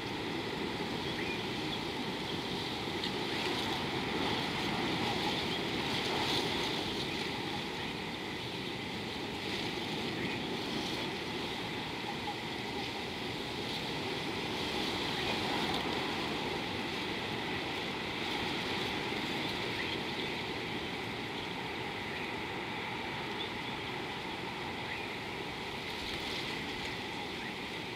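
Steady outdoor background noise: a continuous, even rushing sound that swells gently now and then, with no distinct calls or impacts.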